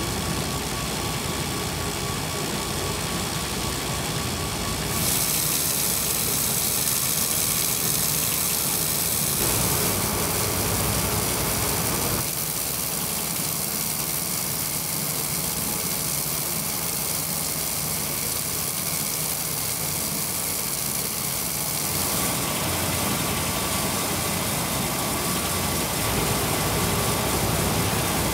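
CNC wire saw running steadily as it cuts a curved line through a thick granite slab, with cooling water spraying onto the cut and a steady hiss. The noise changes in tone abruptly several times.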